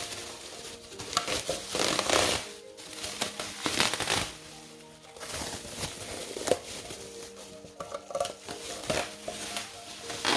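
Packaging crinkling and rustling in several bursts as a new cookware pot is unwrapped and handled, over steady background music.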